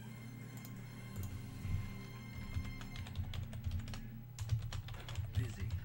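Rapid, irregular light clicks and soft taps, beginning about a second in, over faint steady background music.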